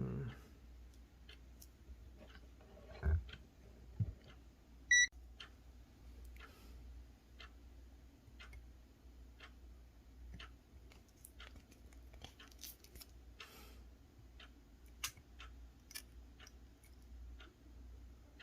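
Small clicks and ticks of hand tools working a thin piece of wire at an electronics bench, with two soft knocks about three and four seconds in. A short electronic beep sounds about five seconds in.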